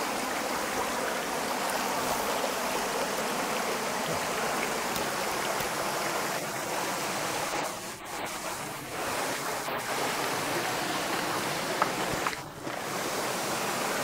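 Steady, loud rush of water from a shallow creek running over rocks and the waterfall it leads to, briefly quieter twice.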